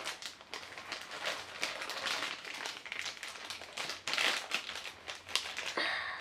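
Small plastic bag crinkling in a run of irregular rustles as it is handled and worked open.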